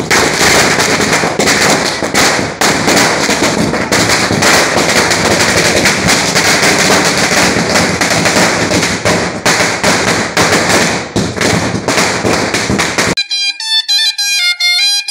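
A long string of firecrackers going off in a fast, dense crackle. It cuts off suddenly about 13 seconds in, when music with a clear stepping melody starts.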